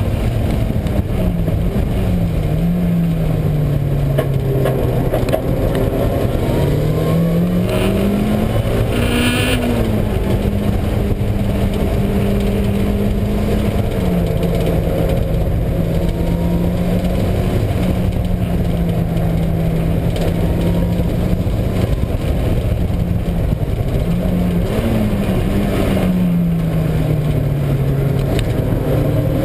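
Mazda Miata driven hard on track, heard from inside the car: the engine's pitch rises and falls as it revs up and slows through gears and corners, with a brief sharp noise about nine seconds in. Under it runs the noise of a failing wheel bearing, which the owner first took for the transmission or exhaust and notices mainly on engine braking.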